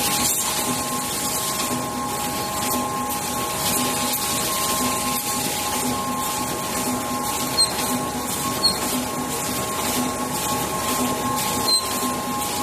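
Automatic servo-driven multi-colour screen printing machine for plastic cosmetic tubes running, a steady mechanical hum with two constant tones over a regular pulsing beat of its printing cycle. Three short, high squeaks come about halfway through and near the end.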